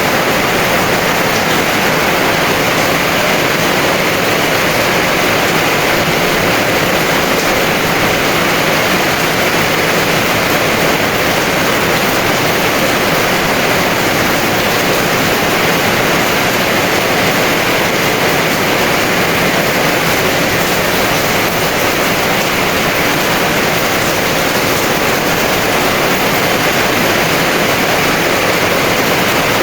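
Heavy rain falling as a steady, even hiss, with no separate drops, thunder or other events standing out.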